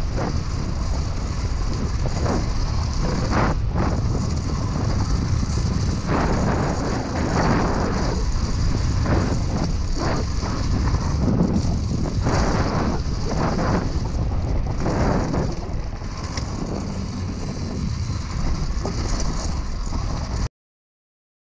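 Dirt bike engine running on a trail ride, heard through the onboard camera's microphone as a heavy low rumble with irregular surges. The sound cuts off abruptly just before the end.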